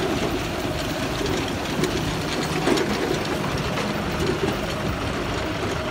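Tractor engine running steadily while pulling a zero-till seed drill through crop stubble, with the drill clattering and a few sharp knocks.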